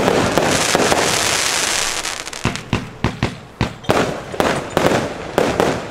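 Comet 'High Heavy' firework battery firing. A dense, rapid volley of shots and breaks runs through the first two seconds, then separate bangs follow every third to half second, thinning out and fading near the end.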